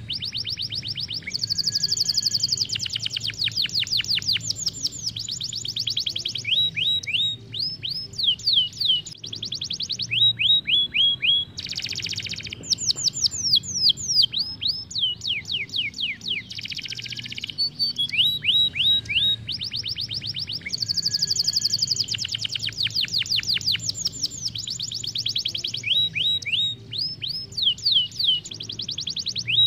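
Isabel canary singing a long song of fast trills and rattling rolls, broken by runs of quick downward-sweeping whistled notes, with short pauses between phrases.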